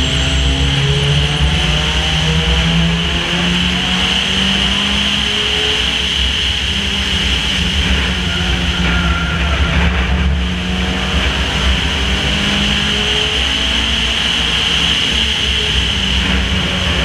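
Race car engine heard from a hood-mounted camera at racing speed, its pitch rising and easing off as it goes through the turns, over a heavy steady rush of wind and road noise.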